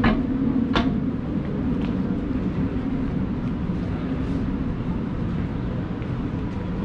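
Busy city street traffic: a steady rumble of vehicle engines, with a low engine hum strongest in the first second or so. Two short sharp sounds come right at the start and just under a second in.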